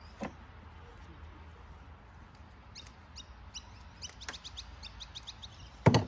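A rapid run of short, high, bird-like chirps, about five a second for roughly three seconds, followed by a single sharp knock just before the end.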